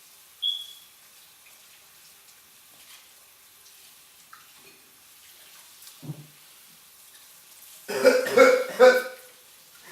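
A man's loud, wordless vocal noise of disgust, lasting just over a second near the end, after a bite of unpleasant candy. Before it there is only low room tone, with a short high chirp about half a second in.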